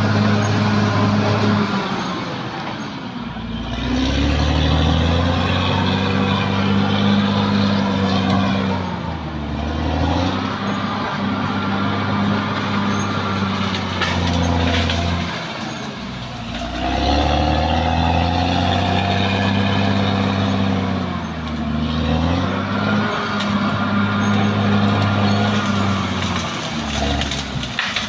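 Caterpillar D6R XL bulldozer's diesel engine working hard, its pitch sagging and recovering about every six seconds, with a whine riding over the engine.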